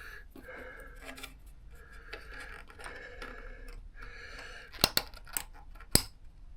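Hand work on motorcycle parts: light scraping and small clicks of tools and fittings being handled, with two sharp clicks near the end.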